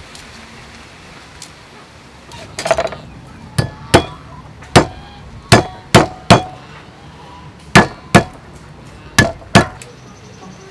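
Cleaver striking garlic cloves on a round wooden chopping block: about eleven sharp knocks, several in quick pairs, beginning a couple of seconds in.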